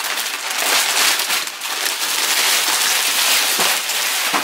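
Gift wrapping paper being torn off a large present and crumpled: a dense, steady crackle and rustle full of fine clicks.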